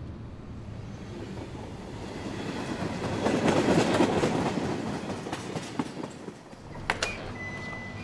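Passenger train crossing a railway bridge: a rumble that swells to its loudest about halfway through and then fades, with wheels clacking over the rail joints. Near the end, a sharp click and then a steady high beep.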